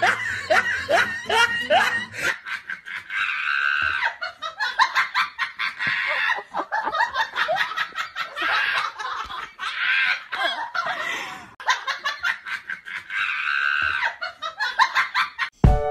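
A person laughing hard in several bouts of fast, high-pitched pulses, each lasting a couple of seconds with short breaks between, after a bit of music fades out about two seconds in.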